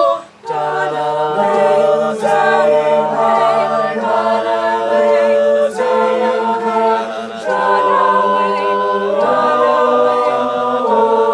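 A cappella group singing held wordless chords, the harmony moving every second or two. The singing breaks off briefly just after the start, and a few sharp percussive hits cut through.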